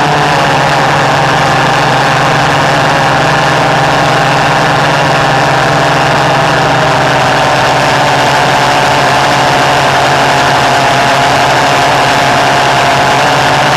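Homemade reed-valve pulse jet engine running continuously: a loud, steady buzzing drone, its pitch sagging slightly in the second half.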